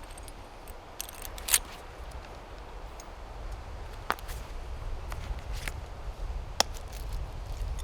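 Footsteps through woodland undergrowth, with scattered sharp twig snaps at irregular moments over a low wind rumble on the microphone.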